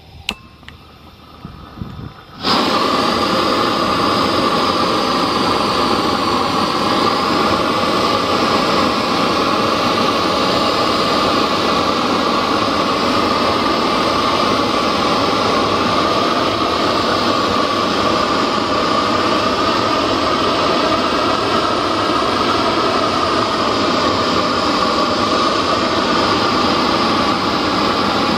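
A few small clicks, then about two and a half seconds in a loud, steady roaring hiss starts at once and holds even: a propane torch burner lit at full flame, charring the surface of wooden posts.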